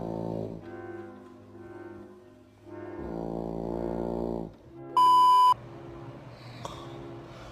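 Loud snoring with a brassy, horn-like tone: two long drawn snores about three seconds apart, with a quieter one between them. About five seconds in comes a loud half-second electronic beep.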